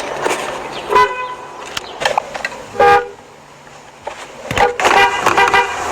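Car horn sounded in a series of short honks, with a quieter pause of about a second and a half in the middle before another run of honks.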